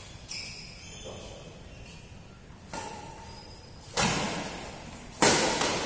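Badminton rackets striking a shuttlecock in a doubles rally: a softer hit about three seconds in, then two loud, sharp cracks about a second apart near the end, each echoing around the hall.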